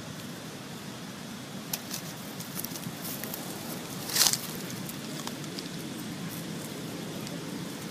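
Dry fallen leaves crackling and rustling under movement, with one louder crunch about four seconds in, over a steady outdoor hiss.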